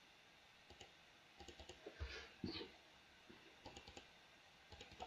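A few faint computer mouse clicks over near silence.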